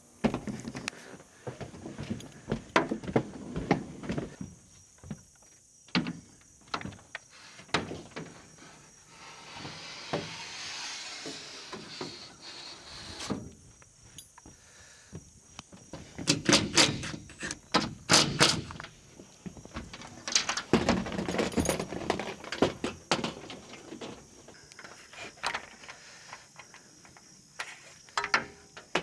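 Irregular knocks, clicks and clunks of solar panels and their metal mounting hardware being handled and taken off a roof array, with a quick cluster of sharp knocks about two-thirds of the way through. About ten seconds in, a rushing, scraping noise lasts a few seconds.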